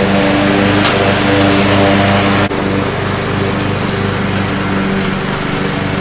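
Troy-Bilt riding lawn mower's engine running steadily while mowing. There is a brief break about halfway in, after which the mower is a little quieter as it heads away.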